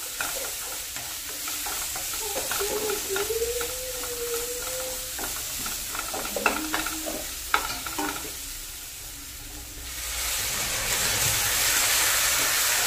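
A wooden spatula stirs and scrapes a thick onion-tomato masala with ground spices around a non-stick kadai as it fries and sizzles, with two sharper knocks against the pan about halfway through. The sizzling grows louder near the end.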